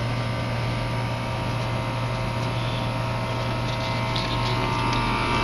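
Steady mechanical hum of a Goodman rooftop HVAC package unit running, with a strong low drone and several steady tones above it.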